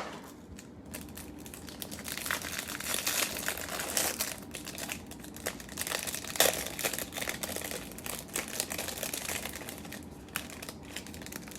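Trading-card packaging being torn open and handled: a long run of irregular crinkling and crackling, busiest in the middle and easing off near the end.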